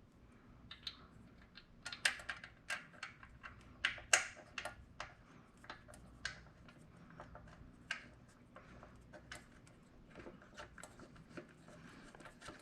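Small metal parts clicking and clinking as bolts and plotter-stand pieces are handled and fitted by hand, in irregular sharp clicks.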